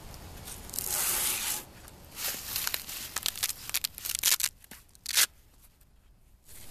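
Hook-and-loop closure on a black nylon pouch being pulled open. There is a ripping burst about a second in, then a run of short crackling rips and clicks, and one last short rip just after five seconds.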